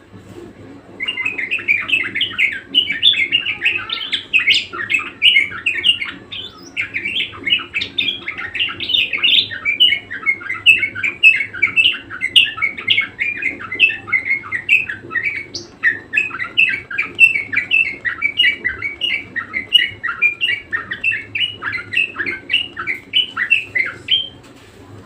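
Budgerigar warbling: a long, unbroken stream of rapid chirps and chatter, starting about a second in and stopping shortly before the end.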